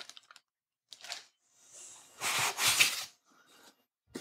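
Rustling and scraping of packing as a boxed item held in foam end caps is lifted out of a cardboard carton. There is a brief rustle about a second in, then a louder scrape lasting about a second in the middle.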